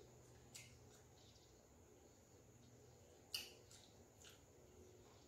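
Near silence with a few faint, short clicks of eating: chewing and mouth sounds. The sharpest click comes about three and a half seconds in.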